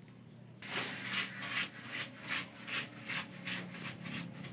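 Rhythmic hand rubbing or scraping strokes, about three to four a second, on a cast-concrete door jamb being smoothed and finished. The strokes start just over half a second in.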